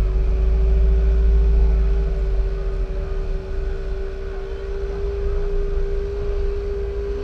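Car engine rumbling as the car creeps along at walking pace, heard close up from its hood, with a steady hum over it throughout. The rumble is heaviest in the first couple of seconds, then eases.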